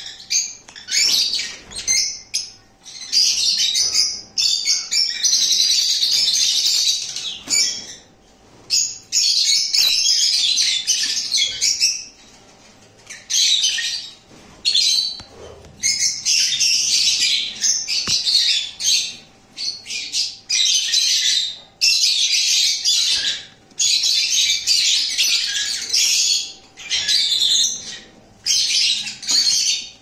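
A group of lovebirds chattering and squawking: shrill, high-pitched calls in near-continuous runs of a second or more, broken by short pauses.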